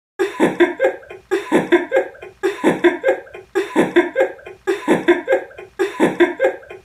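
A young man's short burst of laughter, the same clip looped six times in a row.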